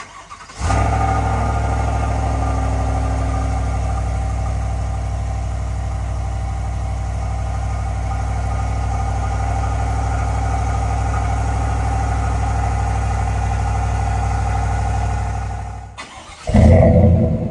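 A 2024 Chevrolet Silverado's 5.3-litre V8 on its stock exhaust starts up about half a second in and idles steadily. Near the end, after a short break, the same truck with a Flowmaster American Thunder cat-back exhaust starts with a louder burst and settles into its idle.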